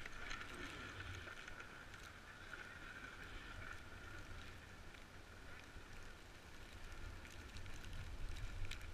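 Snowboard sliding over snow: a faint, steady hiss with a low rumble underneath.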